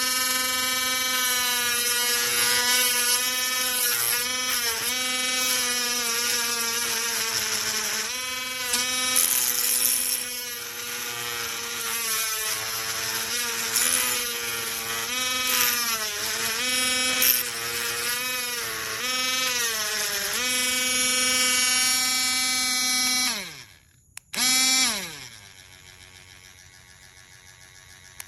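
Small cordless rotary tool's motor running with a high whine, its pitch dipping and recovering over and over. Near the end it is switched off and winds down, is started again for a moment, and winds down again.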